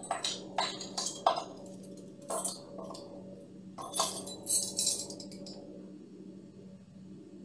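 Metal measuring spoon clinking and tapping against a glass bowl and kitchenware while ketchup is measured into a sauce. A run of sharp clinks over the first five seconds, then quieter.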